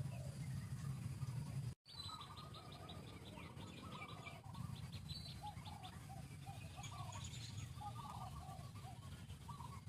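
Birds calling outdoors: a fast, high ticking trill for a couple of seconds, then many short chirps repeated at a steady pace. A low rumbling background is louder at the start and cuts out abruptly about two seconds in.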